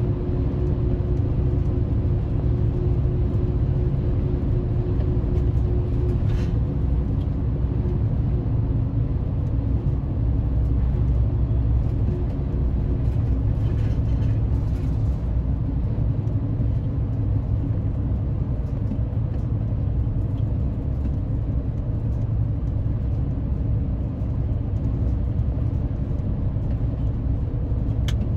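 Road noise inside a car's cabin at highway speed: a steady low rumble of tyres and engine. A faint steady hum fades out in the first several seconds.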